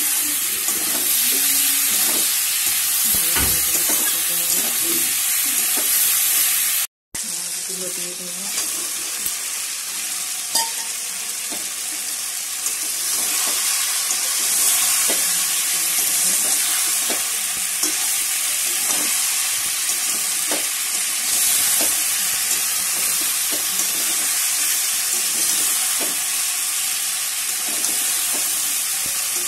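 Onions, chillies, tomatoes and fried fish sizzling in hot oil in a kadai, with a metal spatula stirring and scraping against the pan in frequent short strokes. The sound breaks off for a moment about seven seconds in.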